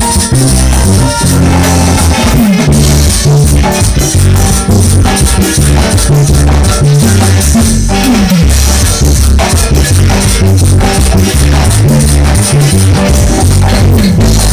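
Marimba orquesta playing live dance music: marimba over a steady bass line, with a regular percussion beat, loud and continuous.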